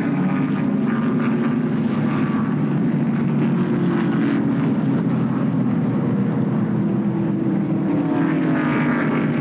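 NASCAR stock cars' V8 engines running past at caution speed in a steady drone. Twice the pitch falls slowly as a group of cars goes by.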